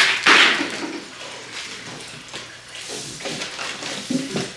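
Rummaging through the packaging of a front lip splitter kit: a loud rustle at the start, then quieter rustling and a few light knocks as the contents are handled.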